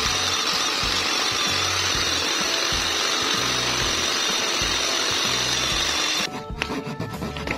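Trim router running, its bit cutting a pocket into plywood, over background music with a steady bass line. About six seconds in the router stops abruptly and quieter, repeated scraping of a hand tool on the wood follows.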